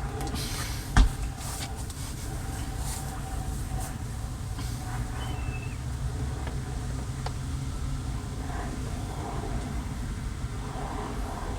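Handling noise of door parts being worked on: one sharp click about a second in and a few lighter ticks later, over a steady low rumble.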